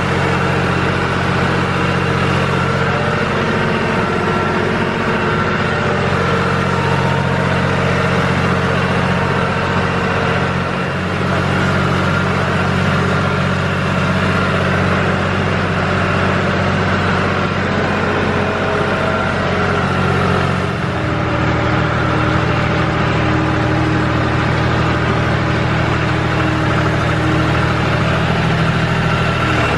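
Tractor's engine running steadily under load; the engine note changes and drops about 21 seconds in.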